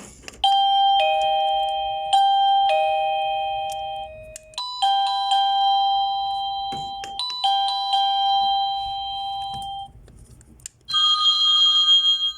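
Plug-in wireless doorbell receiver playing electronic chime ringtones: repeated two-note ding-dong tones, each note struck sharply and fading. About four and a half seconds in it changes to a higher-pitched pair of notes, and near the end to another, higher tone as the ringtones are switched.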